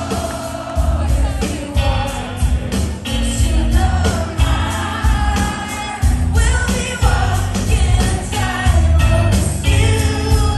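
Live band playing a pop song with a woman singing lead over bass, drums and guitars, loud and bass-heavy, heard from within the audience.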